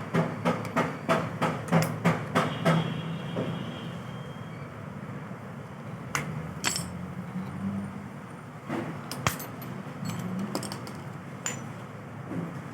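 Rapid hammer blows on metal, about three a second, for the first few seconds, then a few scattered metallic clinks and knocks: the worn, noisy bearing being driven out of a belt-tensioner pulley.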